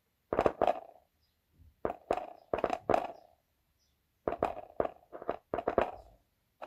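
Dual voice coil car subwoofer popping and thumping as battery leads are touched to its voice coil terminals, in three bursts of several quick pops each. The cone answers on both coils, a sign that both voice coils work.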